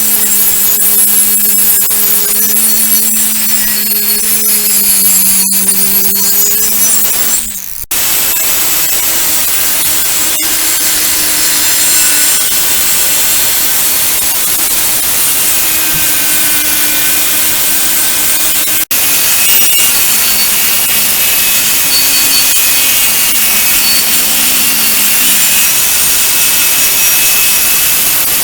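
A handheld power tool runs steadily against the steel shovel, abrading its surface, with a steady motor hum under a loud rasping noise. The sound cuts off abruptly about a quarter of the way in and resumes with the motor at a higher pitch, and there is another very brief break about two-thirds of the way through.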